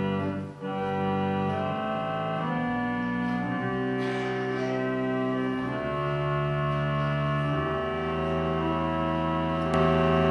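Background music of slow, held organ chords, each chord sustained for a second or two before the next, with a brief break about half a second in.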